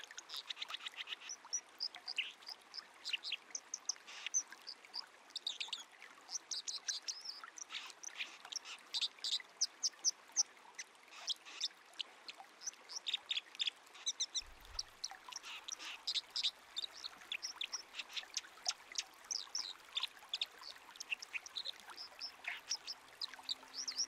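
White-throated dipper singing: a long, continuous run of quick, high notes over a faint, steady rush of river water.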